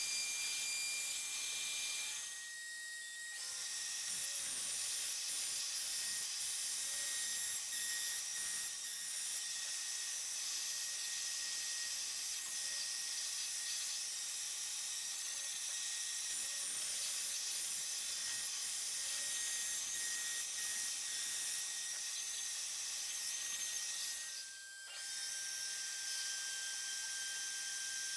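CNC router spindle running at high speed with a steady whine over a cutting hiss, machining acrylic. Twice, at about two and a half seconds and near the end, the sound briefly drops and the whine comes back at a different pitch.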